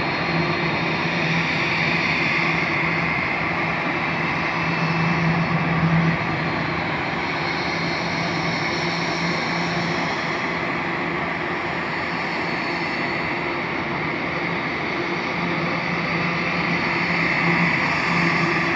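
Aircraft engines running steadily: a loud, even rush with several held tones that waver slightly in pitch.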